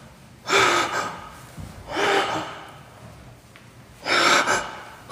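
A man breathing hard close to the microphone: three loud breaths, about one and a half to two seconds apart.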